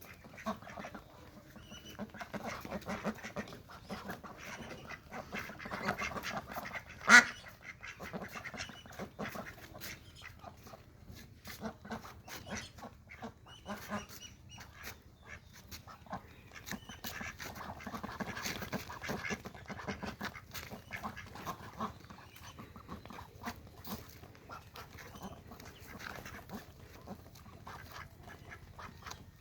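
A flock of domestic ducks quacking and calling almost without pause while begging for food, with one much louder short sound about seven seconds in.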